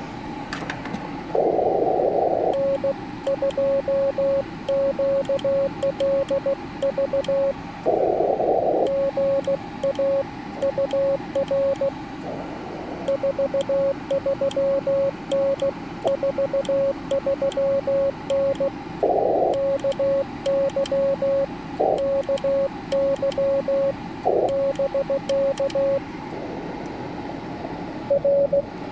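Morse code (CW) from a Yaesu FT-891 HF transceiver: a single mid-pitched tone keyed in dots and dashes at a steady pace over a hiss of band noise. Several short bursts of noise break in, the first about a second and a half in.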